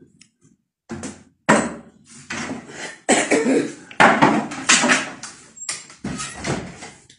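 Loud rustling, shuffling and knocking noises, with sudden starts about one and a half and four seconds in.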